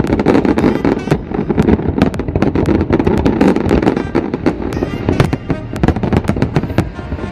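Fireworks display: a dense, unbroken run of sharp bangs and crackles from many shells bursting, several each second.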